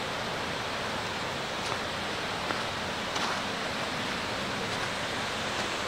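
Water pouring over a dam spillway: a steady, even rushing.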